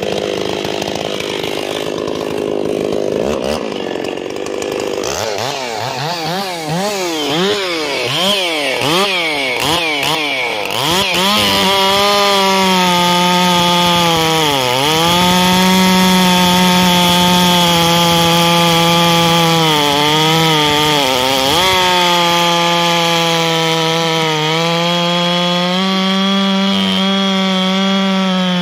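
Ported Stihl MS660 two-stroke chainsaw (91.6 cc), tuned to about 14,000 rpm, blipped up and down several times and then held at full throttle cutting through a log. The high, steady engine note sags briefly a few times as the chain loads down in the wood.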